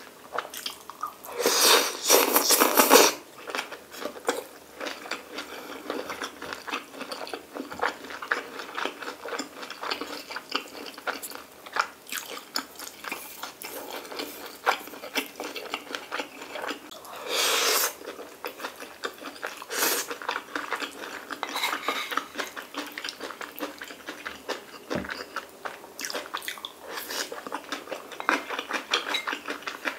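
Close-up chewing and biting of stir-fried kimchi and pork belly with rice, with chopsticks and a spoon clicking against a dish. Two louder, noisier bursts stand out, about two seconds in and again about halfway through.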